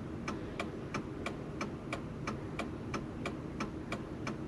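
Steady, even ticking, about three sharp clicks a second, over a low background hum inside the vehicle cabin.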